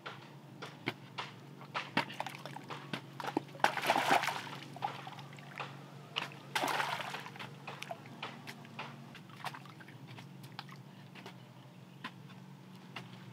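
A bamboo pole jabbing and prying into wet mud and stones in shallow water: a string of short knocks, with two louder splashing sloshes about four and seven seconds in.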